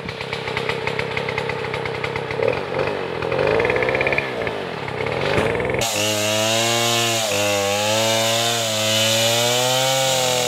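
Chainsaw cutting into the trunk of a large tree, its engine held at high revs with the pitch wavering under load. A little over halfway through, the sound suddenly becomes fuller.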